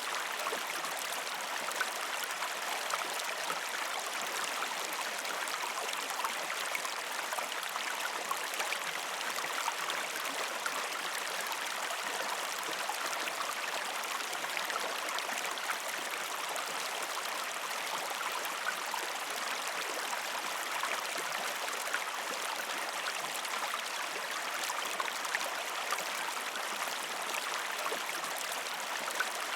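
A river stream flowing over rocks: a steady rush of water flecked with many small splashes and gurgles.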